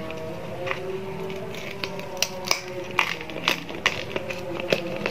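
Crunchy fried macaroni snack pieces being crushed and scattered on a plate, a run of irregular sharp crackling crunches that grow louder and more frequent in the second half.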